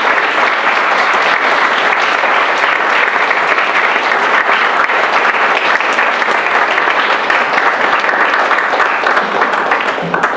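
Audience applauding steadily, the clapping dying away at the very end.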